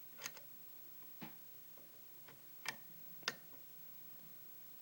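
Lock pick working the pins of a pin-tumbler challenge lock under tension: four or five faint, sharp clicks, unevenly spaced, as pins set and bind.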